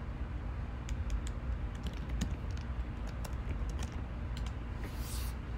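Computer keyboard being typed on in irregular runs of keystrokes, over a low steady hum, with a brief rustle near the end.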